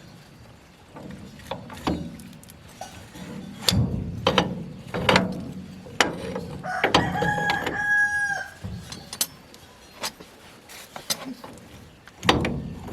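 Irregular metal clanks and knocks from tool work on tractor parts, with a rooster crowing once in the middle.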